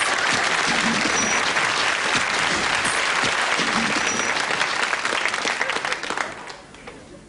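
Studio audience applauding and laughing, dying away about six seconds in.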